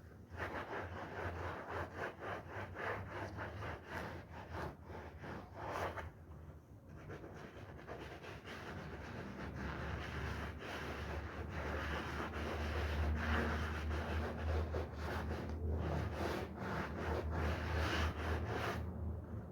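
Stiff brush scrubbing a wet, foamy wool rug in quick, repeated rubbing strokes, which stop near the end.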